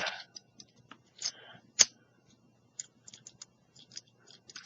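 Light, scattered clicks and taps of a key and a solid brass practice lock being handled, with one sharper click a little under two seconds in.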